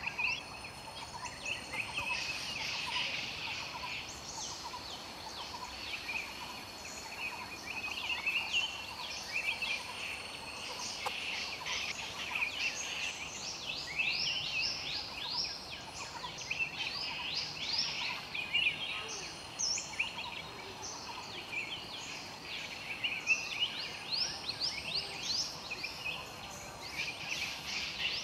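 Woodland ambience: a bird calling in repeated runs of quick, high, downward-sweeping chirps every few seconds, over a steady high hum of insects.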